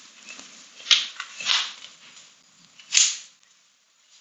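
A person getting up from a yoga mat and walking off barefoot on a wooden floor: clothing and body-movement rustles, heard as a few short, sharp swishes, the loudest about three seconds in.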